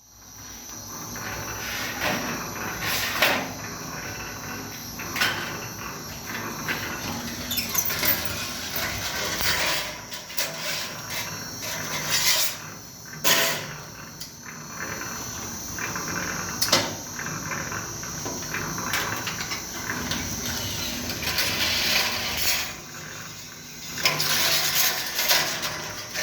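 Sheet-metal slitting and cross-cutting machine running: a steady high whine under irregular metallic clatter and sharp knocks.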